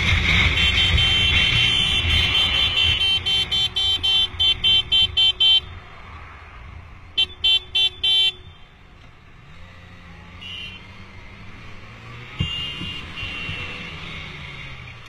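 A vehicle horn honking: one long blast for about three seconds, then a string of about ten short toots coming faster and faster, and after a pause four more quick toots. A motorcycle engine runs steadily underneath.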